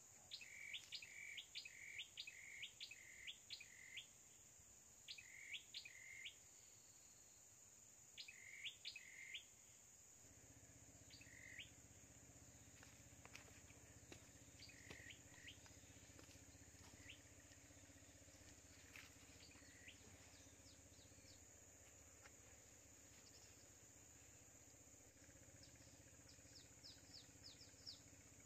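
Small bird calling repeatedly, faint: quick falling notes, first in a run of about six, then in twos and threes, thinning out to a few scattered chirps. A faint low steady hum comes in about a third of the way through.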